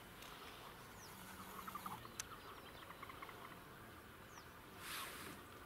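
Faint open-air ambience with scattered small bird chirps and short calls, and a brief soft rush of noise about five seconds in.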